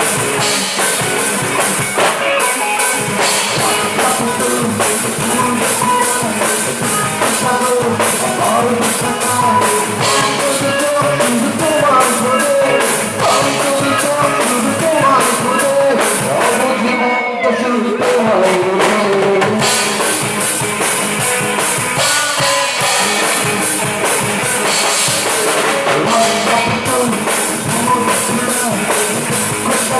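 Rock band playing: electric guitars over a drum kit with a steady wash of cymbals, which drops out for a moment about seventeen seconds in.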